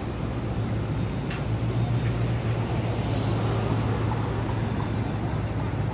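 Steady low mechanical hum, like an engine or machinery running, under a haze of outdoor traffic-like noise.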